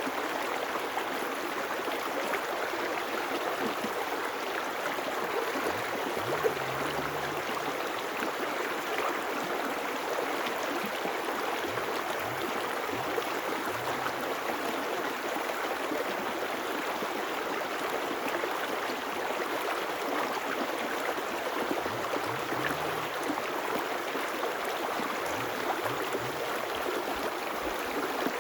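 River water flowing and rushing with a steady, even hiss.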